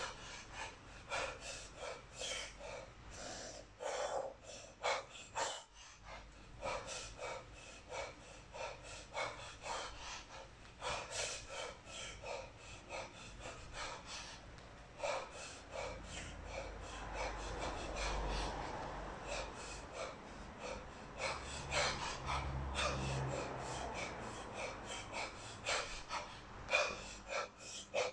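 A man's hard, rhythmic breathing while snatching a 32 kg kettlebell: short, forceful breaths through nose and mouth, about two a second, paced to the repetitions.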